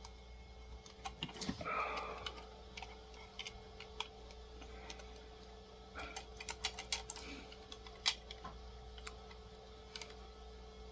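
Scattered light clicks and scrapes of a small flat-head screwdriver working at a stuck screw that won't come out, its head being damaged.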